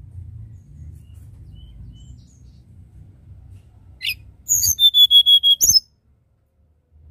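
Hill blue flycatcher (tledekan gunung) singing. A quick sweeping note comes about four seconds in, then a loud, rapid run of notes over a held high whistle, ending in a sharp downward note just before six seconds. A low rumble sits underneath.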